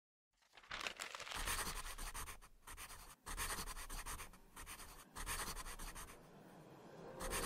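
Pencil scratching across paper in a run of sketching strokes, with short breaks between them.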